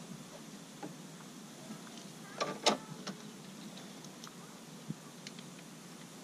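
A few light metallic clicks and clinks of a wrench working a brake-line flare nut on a master cylinder as the line is loosened. The loudest is a short cluster about two and a half seconds in, with single ticks after it.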